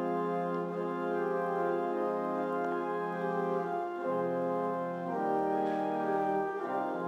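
Organ playing slow, sustained chords that change about four seconds in, again a second later, and once more near the end.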